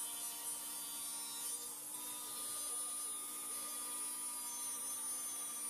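Table saw running steadily, heard faintly, as an end-grain hardwood board is trimmed on it.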